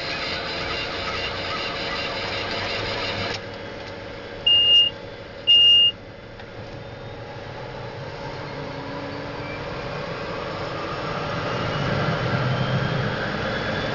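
Pratt & Whitney PT6A-11 turboprop engine in a battery start, its turbine running with a whine that rises gradually in pitch and loudness through the second half as it accelerates. Two short, loud high beeps about a second apart sound a few seconds in.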